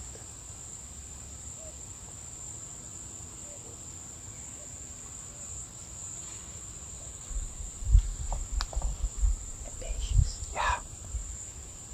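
Insects in tropical jungle keeping up a steady, high-pitched drone. In the second half come irregular bursts of low rumbling, louder than the insects.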